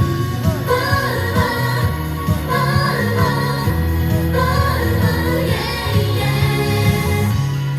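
Japanese idol pop song played loud through a live-event sound system, with a high female vocal melody over a steady bass and backing track.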